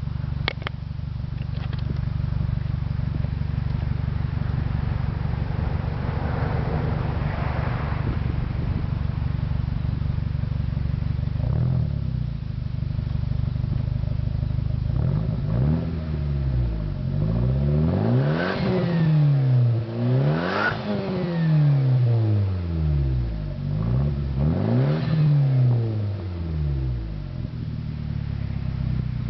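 1997 Mitsubishi Eclipse GSX's turbocharged four-cylinder engine idling, then revved three times about halfway through, each rev rising and falling in pitch before settling back to idle.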